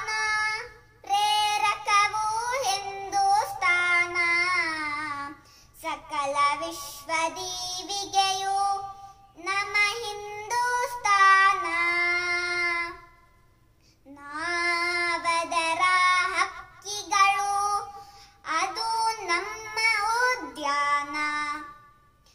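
A boy singing a Kannada patriotic song without accompaniment, in sung phrases with held notes and brief pauses between them.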